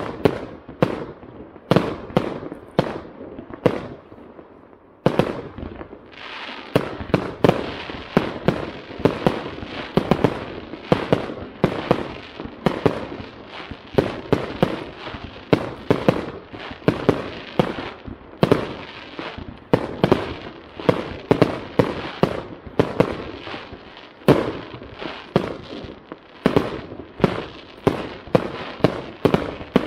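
Aerial fireworks bursting in rapid succession: sharp bangs several times a second, with continuous crackling filling the gaps from about five seconds in.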